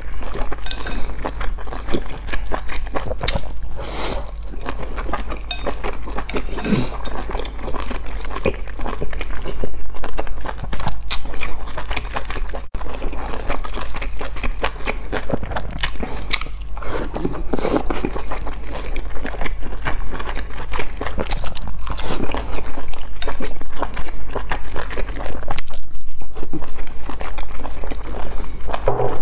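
Close-miked chewing of boiled dumplings: wet, smacking mouth sounds and soft bites, with chopsticks clicking now and then. A steady low hum runs underneath.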